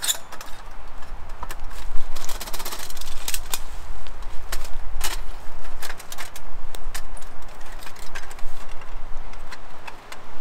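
Irregular knocks and clinks from a small sheet-metal fire stove being picked up and handled, with rustling and footsteps in leaf litter. The loudest knock comes about two seconds in.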